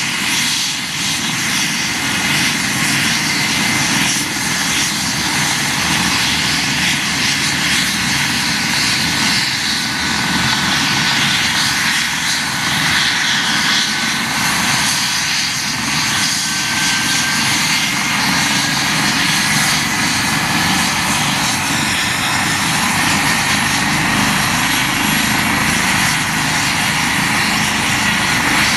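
Eurocopter EC135 P2 helicopter running on the ground with its main rotor turning: a steady, loud din of its twin turboshaft engines, rotor and Fenestron tail fan, with a thin turbine whine sliding slowly lower.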